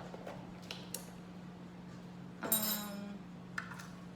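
Kitchen cookware and utensils clinking: a few light knocks, then one louder ringing metal clang about two and a half seconds in, over a steady low hum.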